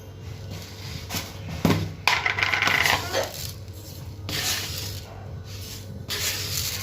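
Small hard objects clinking and rattling as they are handled, with a few sharp knocks and bursts of rustling over a steady low hum.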